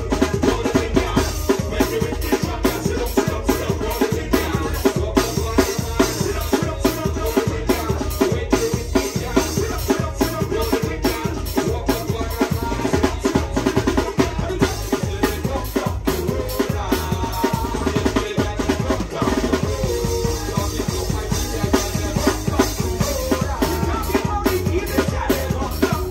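Live band music heard close to the drum kit: kick drum, snare and cymbals keep a steady, busy beat under the guitar and a strong low end.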